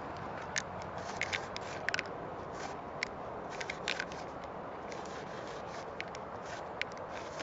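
Molotow Speedflow paint marker scraping across a textured painted metal surface in quick, irregular strokes, giving sharp scratchy ticks, over steady street noise.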